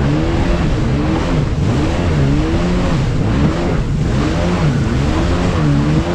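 Jet ski engine running at speed, its pitch rising and falling again and again over a steady rush of noise.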